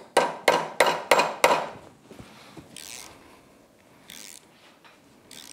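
Five quick hammer blows on a steel socket and a quarter-inch Allen bit driven into a stripped Allen-head bolt at the bottom of a motorcycle fork slider, the impacts meant to jar the stuck bolt loose. Short bursts of a ratchet being worked on the socket follow a couple of seconds later.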